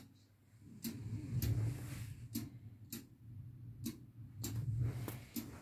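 A Meccano model clock with a Warbey-designed Riefler escapement ticking, the ticks coming in tick-tock pairs about every one and a half seconds, over a low background rumble.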